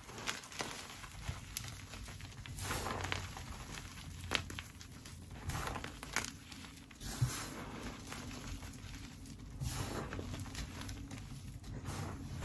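Hands squeezing and crumbling a broken block of bath slime powder: irregular soft crunching and crackling of packed powder, with separate sharper crunches as clumps break.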